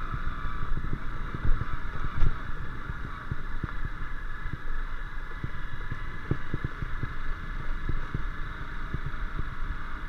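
Honda CBF150's single-cylinder four-stroke engine running steadily under way, with frequent irregular low knocks and thumps from the motorcycle jolting over a rough dirt track; the biggest jolts come about one and a half and two seconds in.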